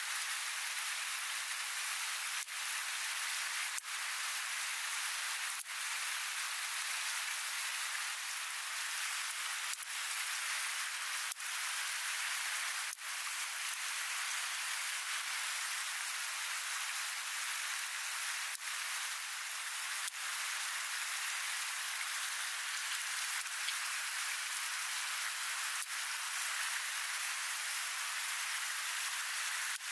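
Steady rushing of a river flowing over stones, an even hiss.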